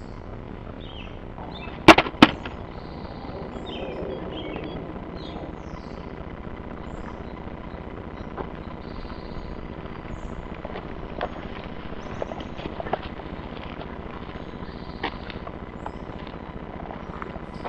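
Two sharp, loud cracks about a third of a second apart, about two seconds in, over a steady outdoor hiss with small high chirps. Fainter single clicks follow every second or few.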